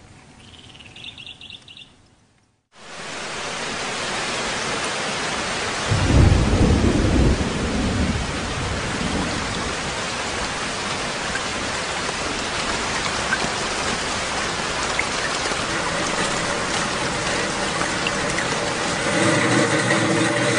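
Faint bird chirps stop, and after a brief silence heavy rain starts and falls steadily. A low rumble of thunder comes about six seconds in. Near the end a steady hum with several tones joins the rain.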